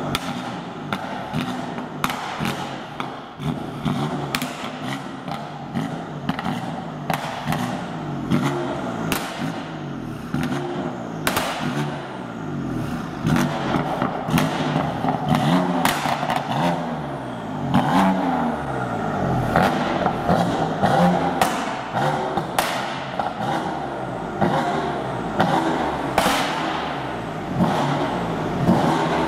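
BMW M4 F82's twin-turbo straight-six revved again and again while parked, through its modified exhaust. The pitch rises and falls repeatedly, with many sharp pops and cracks from the tailpipes.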